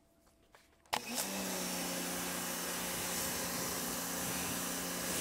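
TEANDE 1800 W electric pressure washer starting up as the wand trigger is pulled about a second in, then its motor and pump humming steadily under the hiss of water spraying from the white tip.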